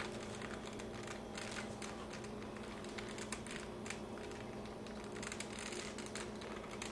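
3x3 Rubik's cubes being twisted by hand to scramble them: rapid, irregular plastic clicking and clacking over a steady low hum.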